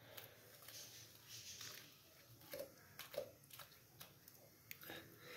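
Faint wet squishing and scraping of a large kitchen knife cutting raw chicken meat away from the bones on a wooden cutting board, with a few soft knocks.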